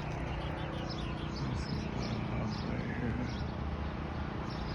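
Small birds chirping in short repeated calls over a steady low hum.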